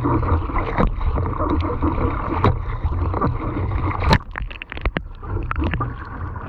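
Kayak paddle strokes in calm sea water: the blade dips and splashes every second or two, over a low steady rumble. The biggest splash comes about four seconds in, followed by a patter of water dripping and spraying off the blade.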